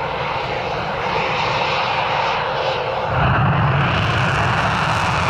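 Jet airplane engine sound effect: a steady rushing jet noise that gets louder about three seconds in.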